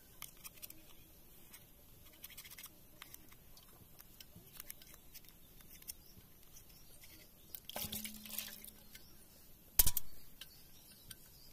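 Small clicks and light scrapes of pliers and metal parts being handled on a stripped-down Stihl chainsaw. A brief scraping rustle comes about eight seconds in, and one sharp, loud click comes near the end.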